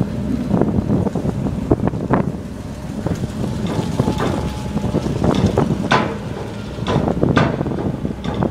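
Wind buffeting the microphone over a steady low engine rumble from a ferry or vehicle, with a few sharp clanks, the clearest about six and seven and a half seconds in.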